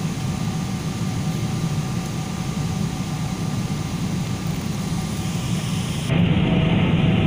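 Steady engine and air noise inside the cabin of a Boeing 777 airliner on its descent to land: a low rumble with faint steady tones in it, which steps up louder about six seconds in.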